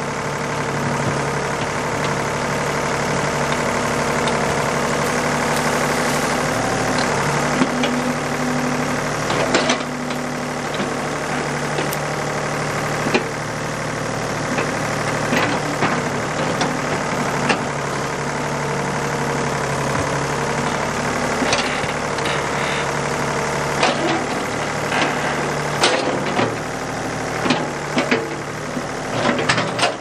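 Ford 555 backhoe's engine running steadily under load while the bucket digs at a tree stump, its valve lash freshly set. Scattered sharp knocks and cracks from the bucket and stump, more frequent near the end.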